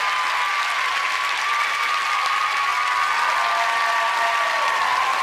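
Studio audience applauding steadily, with long high-pitched cheers held over the clapping.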